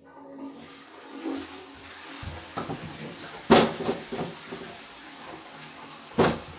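A person walking into the room and up to the phone, with knocks and handling noise over a steady rushing hiss. The loudest knocks come about three and a half seconds in and near the end.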